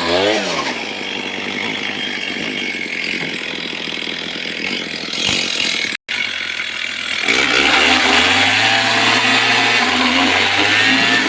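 Stihl chainsaw engine dropping from high revs at the start, then running lower and rougher for several seconds as it cuts into jackfruit wood. The sound cuts out for an instant about six seconds in, and the saw is then revving high again with its pitch rising and falling.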